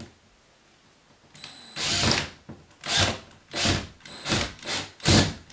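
Cordless drill screwing a self-drilling anchor into drywall. The motor starts about a second and a half in, then runs in about five short bursts as the anchor is driven in flush with the wall.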